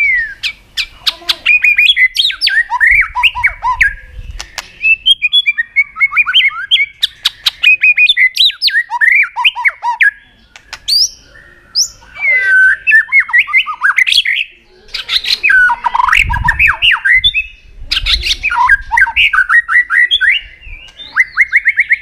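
White-rumped shama singing a long, varied song of quick whistled phrases in many voices, mixed with sharp clicking notes, with brief pauses. A few low thuds come past the middle.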